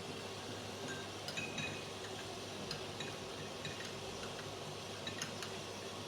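A spoon stirring herbal powder into honey in a small bowl, with a few light clinks of the spoon against the bowl.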